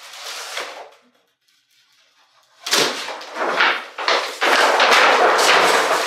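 A vinyl wrap's backing paper peeling away while a plastic squeegee is drawn across the vinyl, with scraping strokes after a pause. Near the end the large loose sheet of backing paper rustles loudly as it is handled.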